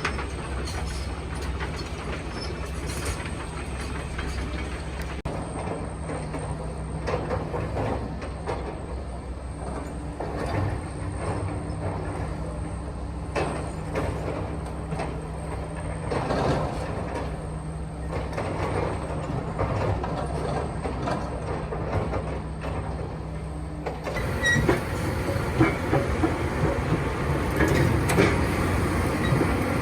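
Hydraulic excavator (backhoe) running steadily at a demolition site, with scattered clanks and crunching as it breaks up debris. The clatter grows louder and busier about three-quarters of the way through.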